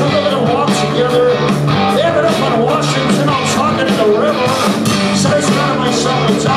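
Live rock band playing loud: electric guitars, bass and drums, with regular cymbal and snare hits.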